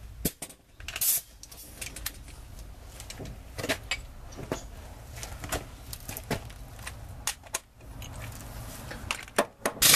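Scattered metal clicks and knocks of hand tools being handled, at irregular spacing, with a louder short scraping clatter about a second in and another at the very end.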